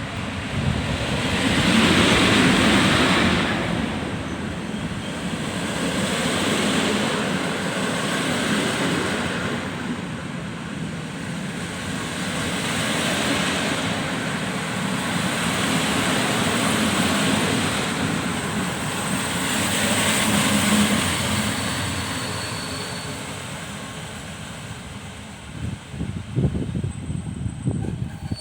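Train running past on the station tracks, a loud rush that swells and fades about every four seconds, with a few sharp knocks near the end.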